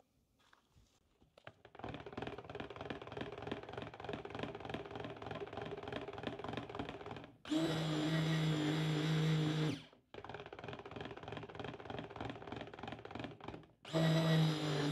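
Braun stick blender pulsed in cold-process soap batter: the motor runs with a steady hum for about two seconds, about seven seconds in, and starts again near the end, with quieter rattling and sloshing between runs as the blender stirs the batter. The owner takes the blender's sound as a sign it needs replacing.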